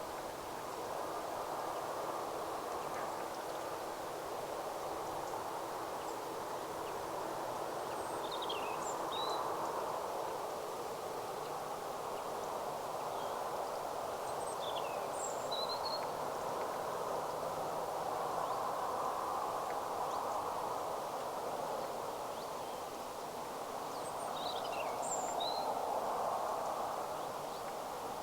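Steady outdoor noise that swells and fades gently, with a small bird chirping in three short bursts of quick high notes.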